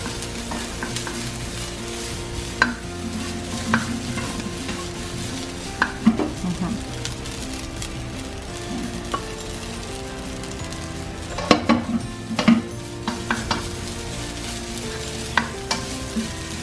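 Garlic fried rice sizzling in a nonstick frying pan while a plastic spatula stirs and scrapes it around, with scattered clicks of the spatula against the pan, bunched most thickly about eleven to thirteen seconds in.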